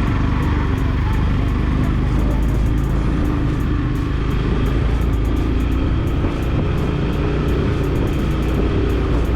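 Vehicle engine running steadily on the move, with a continuous low hum and road noise.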